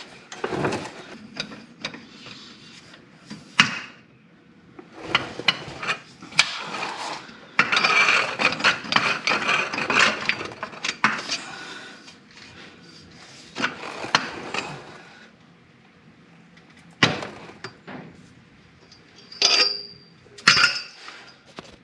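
Steel hand tools clanking and scraping: an adjustable wrench with a breaker bar slipped over its handle being fitted to and strained against a tractor's hydraulic drain plug to break it loose. Irregular knocks and rattles, with sharp ringing metal clinks a couple of times near the end.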